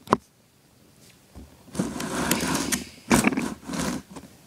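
Handling noise from a phone camera being moved: a sharp click at the start, then a rasping, scraping rub about two seconds in and two short scrapes near the end.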